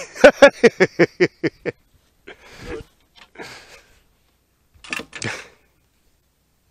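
A person laughing hard: a quick run of about nine "ha"s that fade away, then wheezing breaths in and another short laugh about five seconds in.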